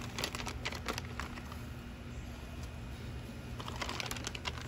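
Scattered light clicks and taps of raw shrimp being set down on a charcoal grill's metal grate, in two short flurries, one at the start and one near the end, over a steady low rumble.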